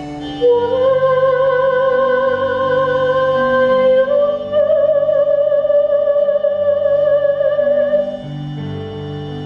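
Slow musical accompaniment: a lead melody line holds two long notes with vibrato, the second a step higher, over soft low chords and guitar. The lead drops out about eight seconds in, leaving the quieter accompaniment.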